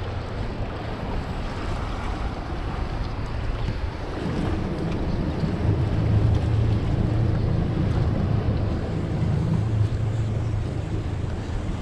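Bay boat's outboard motor running steadily under wind buffeting the microphone and the rush of water; the low engine hum grows a little stronger about four seconds in.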